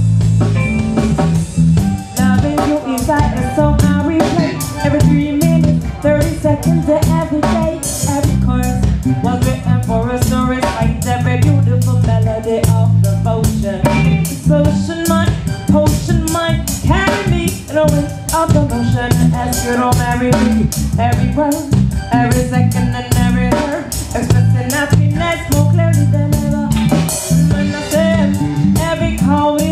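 Live reggae band playing a song: drum kit keeping a steady beat under deep, repeating bass notes and guitar, with a woman singing the melody.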